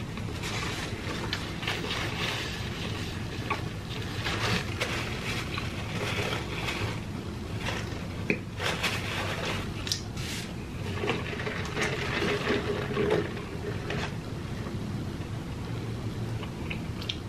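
A person chewing a biscuit close to the microphone: irregular wet mouth sounds, smacks and small clicks, over a low steady hum.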